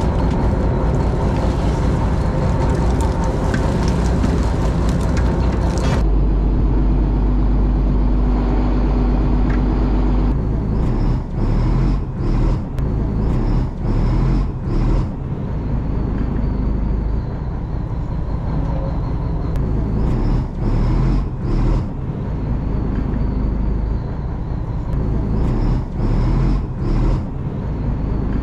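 Fishing boat's engine running with a steady low rumble, mixed with wind and sea noise. About six seconds in, the sound shifts abruptly to a duller mix. Later the level dips briefly again and again.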